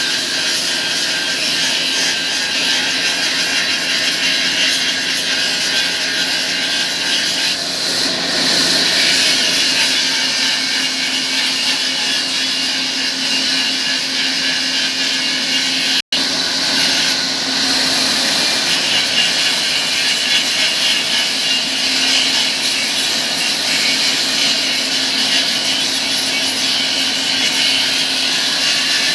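Steady sawmill machinery noise with a strong high hiss and a faint steady hum under it. It cuts out for an instant about halfway through.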